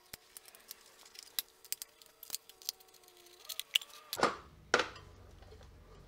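Light clicks and ticks from the screws and side cover of a Janus Halcyon 250 motorcycle being handled and taken off, then two louder scuffs about four seconds in as a hand reaches in behind the cover toward the air filter.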